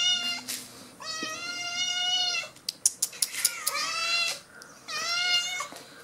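Domestic cats meowing repeatedly: long, drawn-out meows about every second and a half, one of them rising and then falling in pitch. A few sharp clicks come between the meows near the middle.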